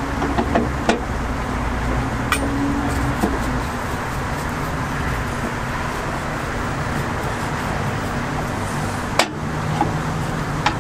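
Steady city street traffic noise, with a few sharp metallic clinks from the fish-shaped bread (bungeoppang) molds being worked. Single clinks fall about a second in and a couple of seconds in, and a stronger one comes near the end.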